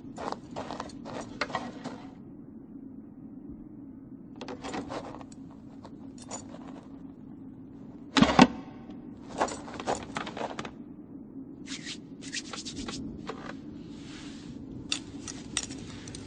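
Footsteps and the knocking of a chair being carried and set down, in short clusters of sharp clicks, with the loudest, ringing knock about eight seconds in, over a steady low hum.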